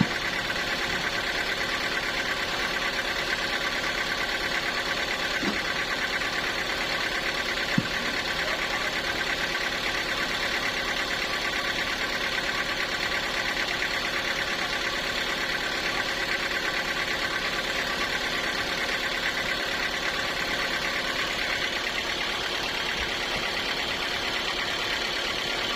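Sawmill engine running steadily at an even speed, with one brief click about eight seconds in.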